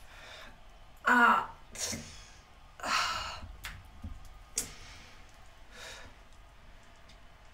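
A person's breath sounds: a short voiced gasp about a second in, then a breathy, sigh-like exhale about three seconds in, with fainter short sounds after.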